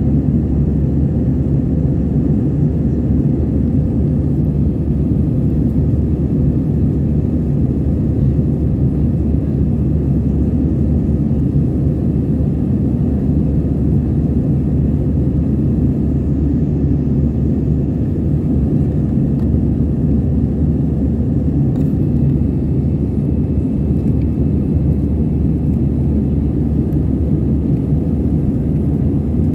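Steady cabin noise of an Airbus A320-214 in its climb: the low rumble of its CFM56 jet engines and the rush of air over the fuselage, heard inside the cabin, even and unchanging throughout.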